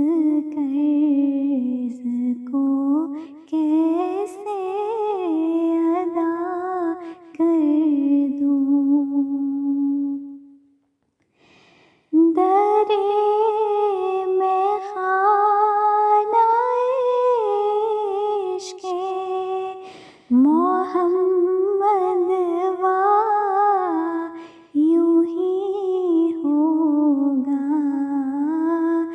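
A woman's voice, unaccompanied, carrying a slow naat melody in long, wavering phrases, with a break of about a second and a half some ten seconds in.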